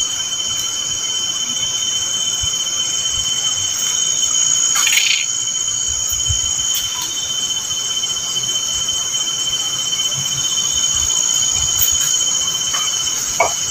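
Night chorus of crickets: steady shrill trilling at two high pitches. A short, louder sound breaks in about five seconds in.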